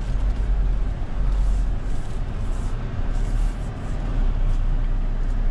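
Mahindra Thar 4x4's engine running with a steady low rumble as the vehicle drives through water and mud.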